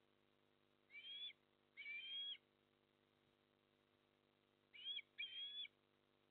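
Eastern osprey calling: two pairs of short, high, whistled chirps, the second pair about four seconds after the first.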